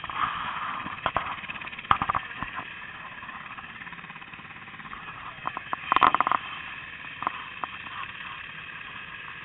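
UH-60 Black Hawk helicopter running on the ground, its twin turboshaft engines giving a steady whine of several held tones. A few short, loud crackling bursts break through, the loudest cluster about six seconds in.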